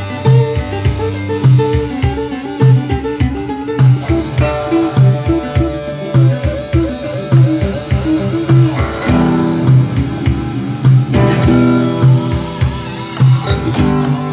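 Improvised instrumental music on classical and electric guitar: plucked notes over a low, repeatedly pulsing note, with a wavering, vibrato-laden line near the middle.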